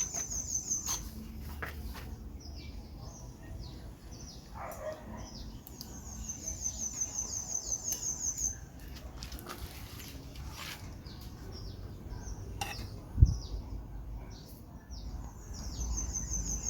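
Birds chirping, with many short high chirps and a rapid high trill that repeats about every eight seconds. A single low thump about 13 seconds in.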